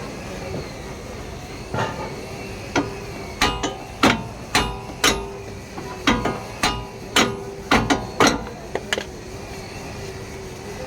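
Hammer striking metal, about a dozen sharp ringing blows at an uneven pace of roughly two a second, then stopping.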